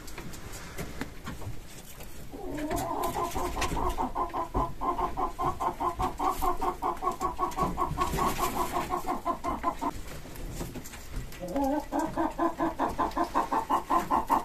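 Farmyard fowl calling off camera in two long runs of rapid, evenly pulsed notes. The first run starts about two seconds in and lasts around seven seconds; the second follows after a short pause.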